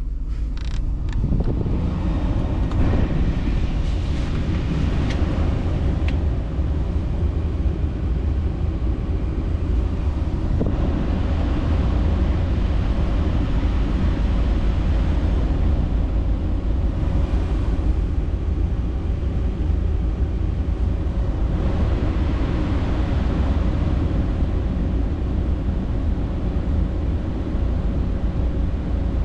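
2010 Nissan Titan's air-conditioning blower running steadily: an even rush of air with a heavy low rumble, coming up to full in the first second or so.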